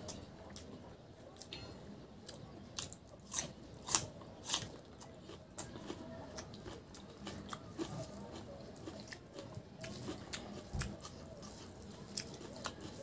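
Close-up eating sounds: wet mouth smacks and clicks of chewing pork curry and rice, with fingers scooping food off a banana leaf. The clicks come at irregular intervals, the sharpest around four seconds in.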